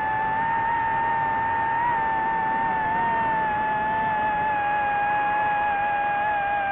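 DJI FPV quadcopter's motors and propellers whining at a steady, high pitch while in flight, with several close tones from the rotors drifting slightly as the throttle shifts.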